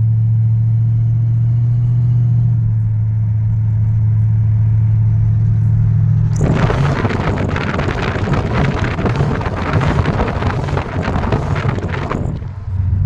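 A car engine running steadily at idle. For about six seconds in the middle, a loud rushing noise covers it.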